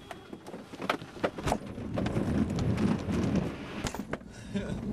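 Glider accelerating along the ground on its launch run: irregular knocks and rattles as the airframe bumps over the ground. A low rumble builds from about two seconds in.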